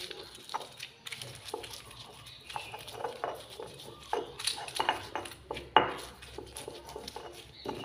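Stone pestle grinding and crushing chillies in a stone mortar (Indonesian cobek and ulekan), making irregular scrapes and knocks of stone on stone through the wet chilli paste. The loudest knock comes a little before six seconds in.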